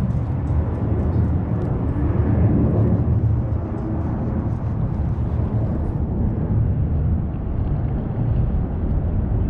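Wind buffeting the microphone: a steady, rough low rumble with no break.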